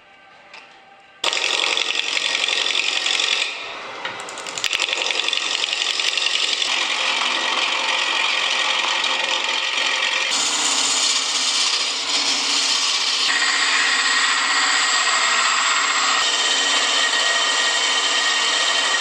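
Power tools working wood: a run of short clips, each a steady noisy grinding or cutting sound, starting about a second in and changing abruptly several times.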